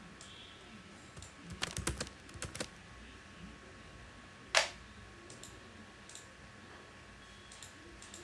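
Computer keyboard keys and mouse buttons clicking: a quick run of keystrokes about two seconds in, one sharper single click halfway through, then a few faint clicks.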